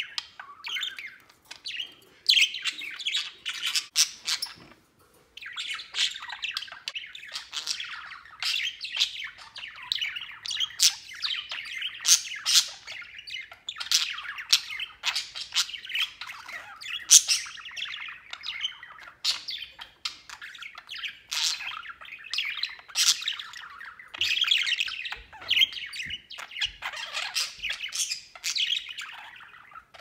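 Budgerigars warbling and chattering: a near-continuous run of fast chirps, clicks and squawks, with a short pause about five seconds in.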